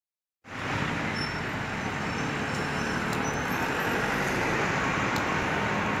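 Steady street traffic noise, an even hum of road vehicles, starting about half a second in.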